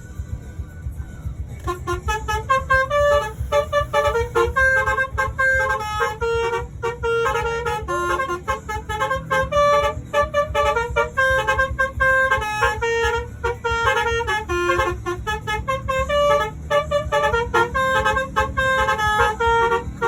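Bus basuri (telolet) musical air horn playing a fast tune of short stepped notes that starts about two seconds in, over a steady low rumble.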